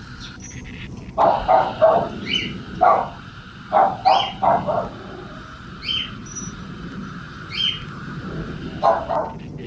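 A dog barking in short runs of two or three barks, with a single bark now and then. A higher short chirp repeats every second or two, over a steady low rumble.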